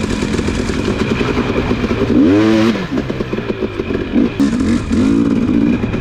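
Dirt bike engine running under throttle. About two seconds in the revs rise sharply and drop back, and near the end they rise and fall again in a few short blips.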